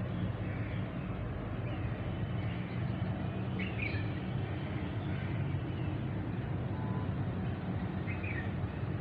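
A steady low rumble with a few short, high chirps, the clearest about four seconds in and near the end.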